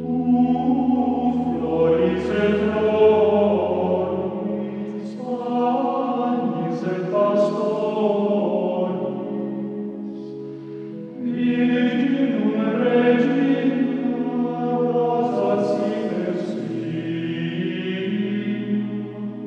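Background music: a choir singing a slow chant over sustained held tones, in two long phrases with a short break about eleven seconds in.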